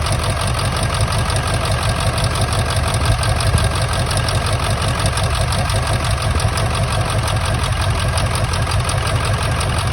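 Ford 7.3 Powerstroke V8 turbo diesel idling with a steady, fast diesel clatter, the engine misfiring on an injector.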